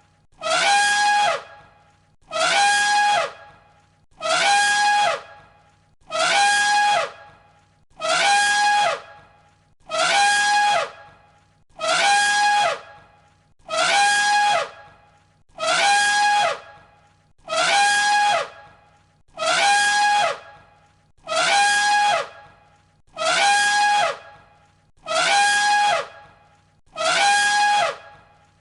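An elephant trumpeting: one short, loud, brassy blast, level in pitch and then dropping at the end, repeated identically about every two seconds as a loop.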